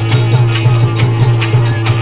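Devotional music with a steady drumbeat at about four beats a second over a deep held note.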